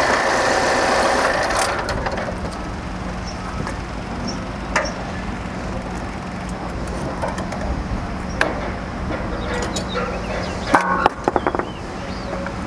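Kubota diesel engine of a Hog Pump HP-20T4 grout pump idling steadily. For about the first two seconds a louder whine rides over it as the hydraulic rams are adjusted, then it settles. A few sharp metallic clicks come later.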